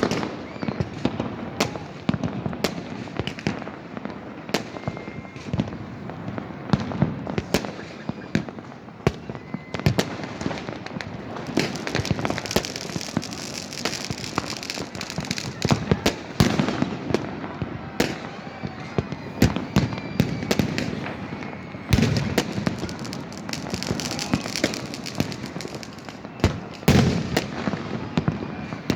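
Fireworks and firecrackers going off continuously: many sharp bangs in quick succession over a steady crackle, with denser crackling stretches about halfway through and again near the end.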